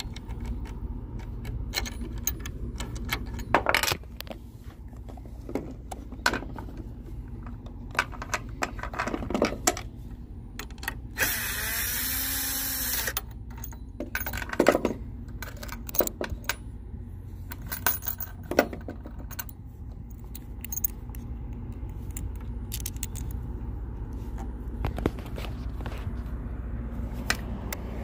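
Scattered metal clinks and knocks from nuts, washers and bolts being handled while mounting a sign bracket, with a power drill running for about two seconds near the middle, over a steady low hum.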